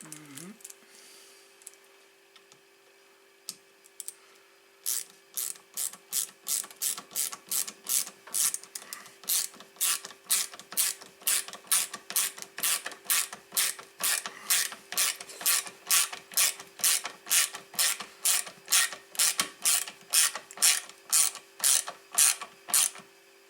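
A hand ratchet clicking in a steady rhythm, about two clicks a second, as small screws are driven in to fasten the part snugly. A few scattered clicks come first, and the steady clicking starts about five seconds in.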